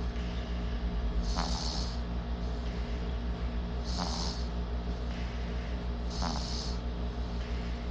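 Sleeping baby snoring in a slow, regular rhythm, one snoring breath about every two and a half seconds, three in all. A steady low hum runs underneath.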